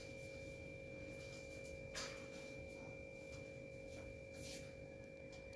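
Faint steady hum with a thin high tone over it, and a brief soft crinkle of butter paper being peeled off a cake about two seconds in, with another faint one near the end.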